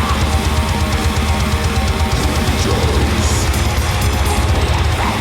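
Heavy metal music with electric guitar and a heavy, steady low end, played loud.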